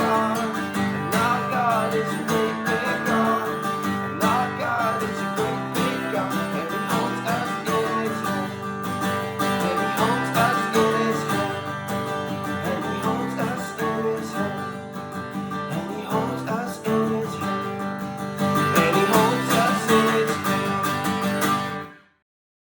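Music with a steady, full sound, stopping abruptly near the end.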